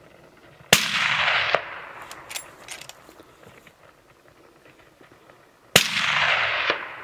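Two hunting rifle shots about five seconds apart, each a sharp crack followed by an echo that trails off over about a second. A few faint clicks fall between them.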